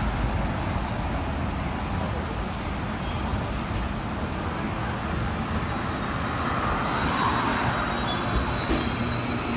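Street traffic: road vehicles running past with a steady low rumble.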